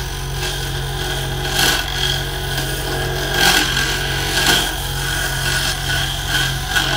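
Wen 3421 variable-speed mini wood lathe running steadily on its high setting while a hand chisel scrapes and cuts into the spinning wooden blank. The cutting noise swells several times as the chisel is pressed in, over the lathe motor's constant hum.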